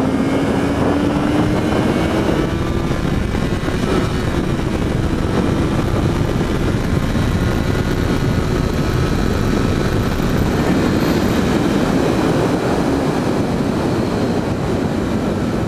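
Yamaha XJ6's inline-four engine running hard at speed, its pitch climbing slightly over the first few seconds and then holding steady, under heavy wind rush on a helmet-mounted microphone.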